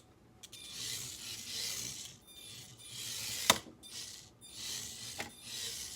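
A 1/64-scale micro RC car's tiny motor and gears whirring in short bursts as it is driven back and forth, with a sharp click about halfway through.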